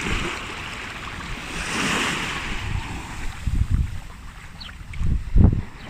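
Sea waves washing up onto the beach, a hiss that swells about two seconds in and then fades, with gusts of wind rumbling on the microphone, strongest near the end.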